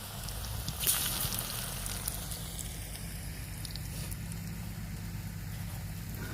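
Pressed, flattened green banana slices frying in hot oil in a pot over a fire: a steady sizzle with scattered small crackles and a louder crackle about a second in.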